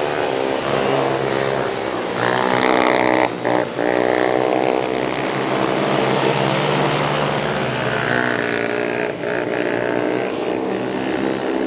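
Several small racing ATV engines running together at high revs, their overlapping notes rising and falling as the quads accelerate out of and ease into corners.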